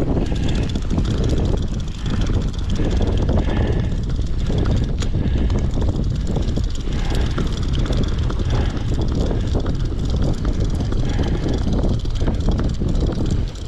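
Steady low rumble of a fishing boat's engine, mixed with wind buffeting the microphone.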